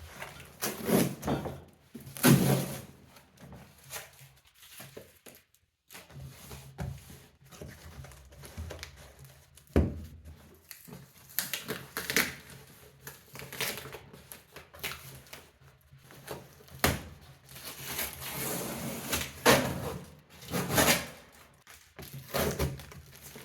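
Cardboard box and its packaging being handled: irregular rustling and scraping with several sharp knocks, and a brief pause about five seconds in.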